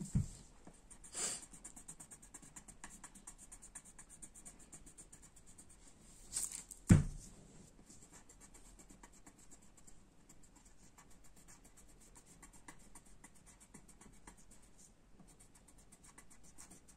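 Colouring pencil scratching on paper in quick, rapid back-and-forth strokes as letters are coloured in. A sharp knock about seven seconds in stands out as the loudest sound.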